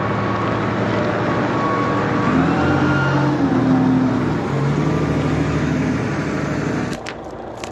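Large container forklift's engine running under load, revving up about two seconds in and dropping away near the end.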